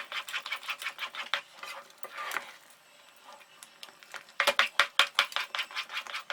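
A ladle scraping and clicking against a kadai as thick cornflour halwa is stirred, in quick runs of strokes with a quieter pause about halfway through.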